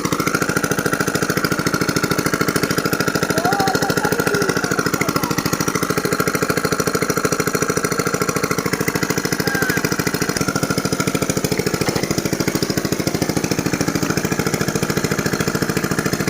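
Small engine running steadily with a fast, even chugging beat.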